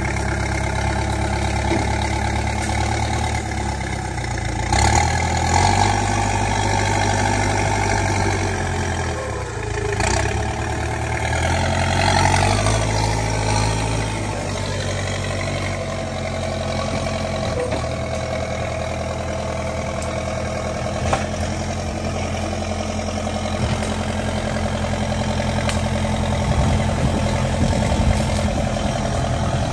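Backhoe loader's diesel engine running steadily, revving up under load about five seconds in and again around twelve seconds in as it pushes into the brush.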